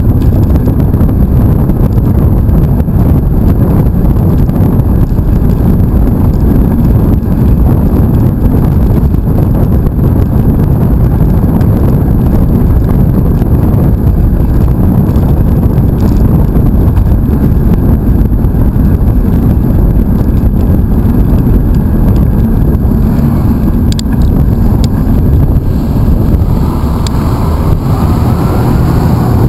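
Wind buffeting the microphone of a bike-mounted camera, with tyre and road rumble, as a mountain bike rides at speed. The sound is a loud, steady low rumble throughout.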